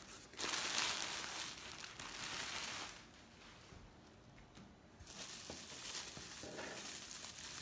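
Plastic packing material (air pillows and bubble wrap) crinkling and rustling as a cardboard box's flaps are opened and a hand reaches in among the packing, with a quieter lull in the middle.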